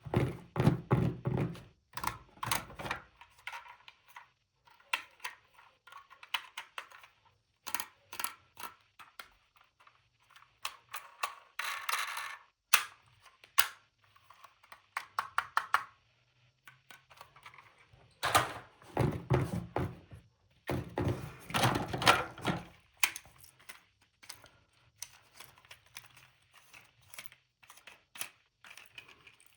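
Plastic toy pieces and packaging being handled: irregular clicks, taps and thunks in short flurries, with louder bouts near the start and about two-thirds of the way through.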